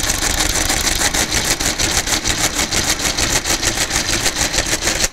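Friden square-root automatic electromechanical calculator running an automatic division: a fast, even mechanical clatter of its motor-driven works, about eight strokes a second, that cuts off suddenly at the end as the division finishes.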